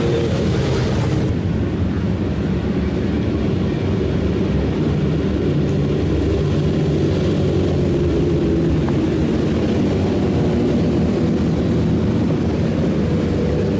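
A group of motorcycles riding slowly past in convoy, their engines running steadily at low revs.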